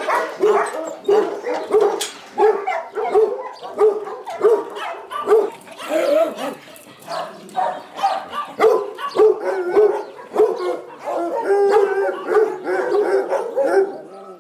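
Dogs barking in shelter kennels, short barks about two a second, growing busier and more overlapping near the end.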